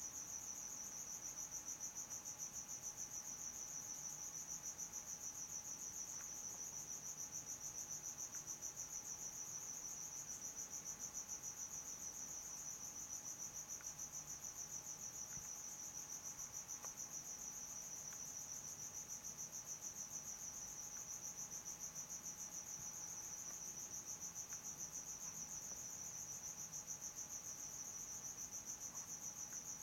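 A steady, unbroken, high-pitched insect-like trill, with a faint steady tone beneath it.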